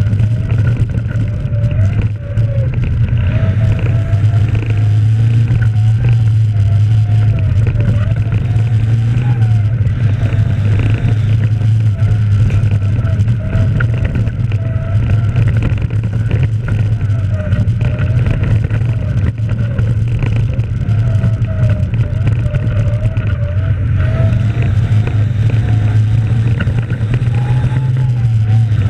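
Off-road vehicle's engine running continuously while driving, a deep steady drone with a higher whine that wavers up and down with the revs.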